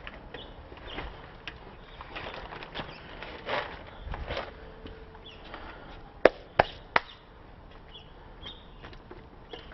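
Workshop handling noises: scattered clattering and rustling, then three sharp knocks in quick succession a little after six seconds in.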